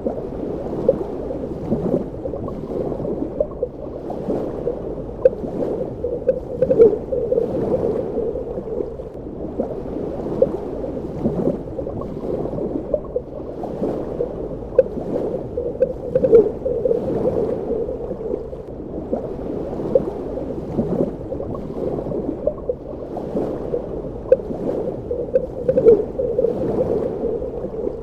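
Underwater ambience: a muffled, steady water rush full of small bubbles and gurgles, swelling and easing every few seconds.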